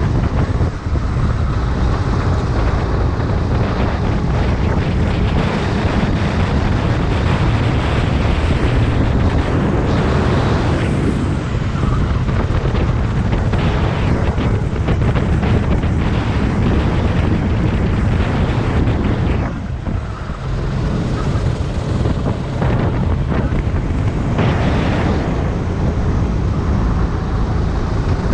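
Rental go-kart engine running flat out at racing speed, heard from onboard, with heavy wind buffeting on the camera microphone. The sound dips briefly once, about twenty seconds in.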